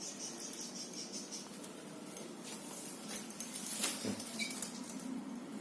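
Faint scratching and light tapping from cockatiels moving about, with a few sharper clicks about three to four seconds in.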